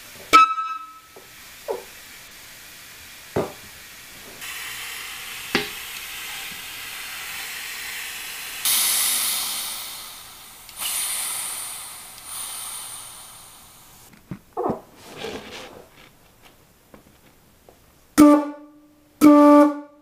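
Homemade PVC air horn with an oil-funnel bell, blown with compressed air from a shop compressor: a brief honk at the very start, then a long hiss of air as the compressor's pressure regulator is turned up, and two short loud horn blasts near the end.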